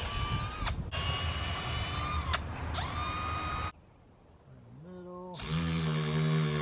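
Power drill boring a hole for a lag bolt: a steady high motor whine that dips briefly in pitch a few times as the bit loads up. It stops a little past halfway, then starts again slowly and runs at a lower speed near the end.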